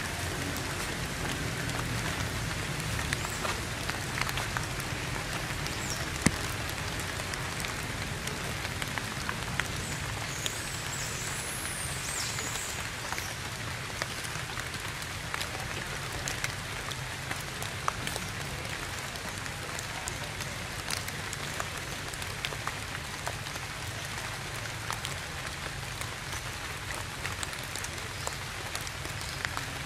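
Steady rainfall, an even hiss scattered with sharp ticks of individual drops. A short, high chirping call comes in about ten seconds in.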